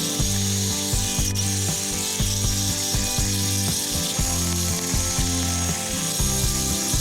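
Background music with a steady rhythm of changing bass notes, over a constant high hiss.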